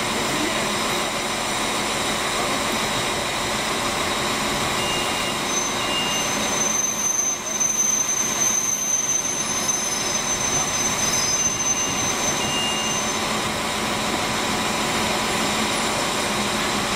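EN57 electric multiple unit rolling slowly into the platform. A thin, high, steady squeal, typical of wheels or brakes, rises above its rumble about five seconds in and stops near thirteen seconds.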